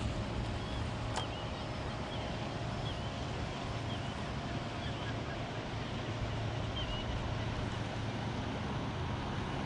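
Steady low hum of a distant motorboat engine over wind and water noise, with a light click about a second in and a few faint short high chirps.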